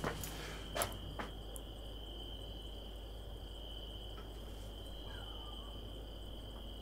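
Crickets chirping steadily, with a few sharp knocks in the first second and a half.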